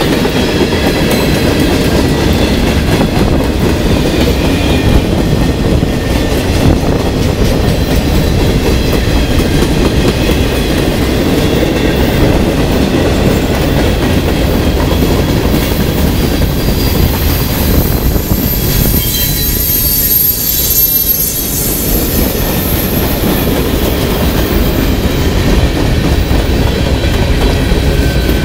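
Freight cars rolling past on jointed rail: a steady heavy rumble of steel wheels with clickety-clack over the rail joints. A thin high wheel squeal rises in about two-thirds of the way through.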